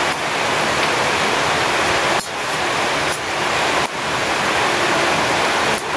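Steady rushing of water, loud and even, dipping briefly three times.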